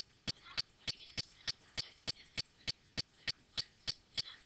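A steady run of short, faint clicks, evenly spaced at about three a second.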